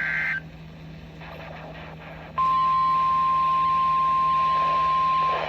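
NOAA Weather Radio emergency alert: the tail of the warbling SAME digital header burst cuts off about half a second in, then about two seconds of faint radio static. The steady 1050 Hz warning alarm tone starts about two and a half seconds in and begins to break up just at the end, from interference on the broadcast.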